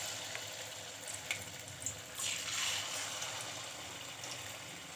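Gulgula (sweet wheat-flour batter) fritters sizzling as they fry in hot ghee in a kadai. The sizzle swells louder about two seconds in and then eases off, with a couple of faint clicks.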